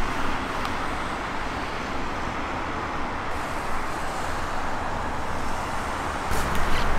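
Steady road traffic noise from cars circling a busy roundabout, their tyres running on a wet road surface. About six seconds in, a louder low rumble with crackling comes in.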